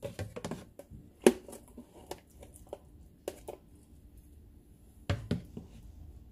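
Wet cut bitter bolete pieces tipped from a mesh strainer into a plastic tub, giving scattered soft knocks and taps. The sharpest tap comes about a second in, and a short cluster about five seconds in.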